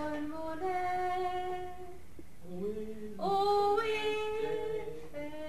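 A woman singing unaccompanied, holding long, steady notes, with a short break about two seconds in before she slides up into the next held note.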